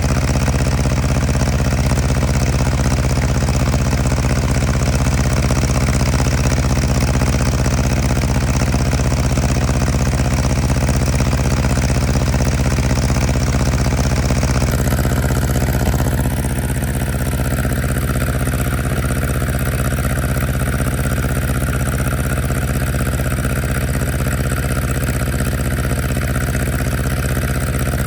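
Tractor engine running steadily; its sound changes slightly and drops a little in level about 16 seconds in.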